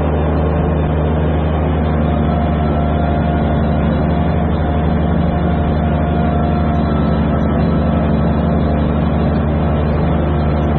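Kubota BX2380 subcompact tractor's three-cylinder diesel engine running steadily, heard close up while driving out to mow.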